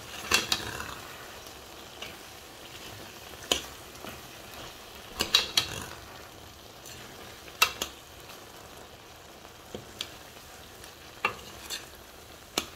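Beef kidney stew, cooked down to a thick paste in oil, sizzling in a pot: the juice has gone and it is now frying. A spatula stirs it, scraping and knocking sharply against the pot every second or two.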